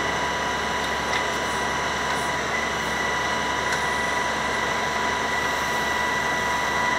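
Truck-mounted knuckle-boom grapple crane working its boom: a steady high hydraulic whine over the noise of the truck's running engine.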